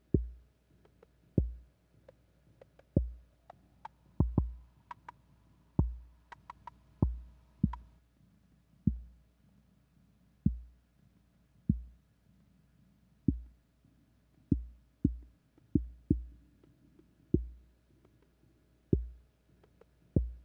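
Electronic music: deep synthesized bass thuds at a slow, uneven pulse about every second and a half, some in close pairs like a heartbeat, each with a sharp click on top. Quick high ticks and a faint steady high tone come in between about four and eight seconds in.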